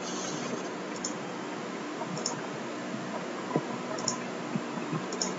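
Computer mouse clicks: about five short, sharp ticks spread over a few seconds, several of them doubled as the button is pressed and released, over a steady background hiss.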